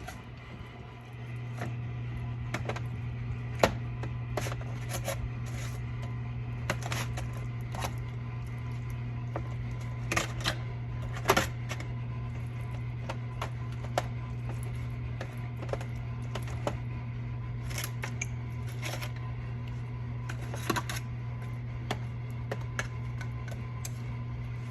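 Irregular clicks and taps of a utensil against a baking pan as jerk chicken pieces are turned over, over a steady low hum that starts about a second in.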